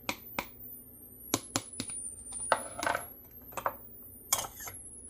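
A series of sharp, irregularly spaced clinks and taps of a utensil against a glass jar, some with a short ringing tail.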